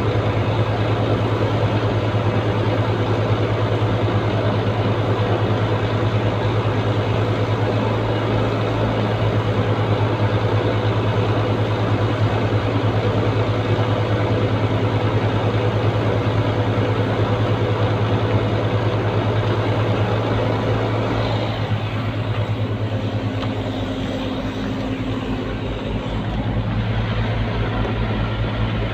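Sinotruk HOWO 371 heavy truck's diesel engine idling, a steady low hum.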